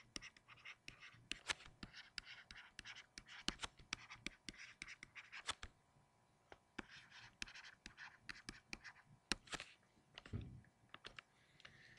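Faint tapping and scratching of a stylus writing on a tablet screen, with a short pause about halfway.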